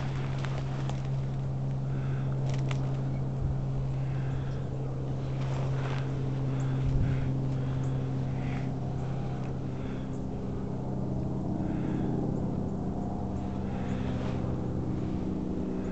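A steady low drone of an engine running, its pitch shifting slightly in the second half, with light rustling of dry brush and a single thump about seven seconds in.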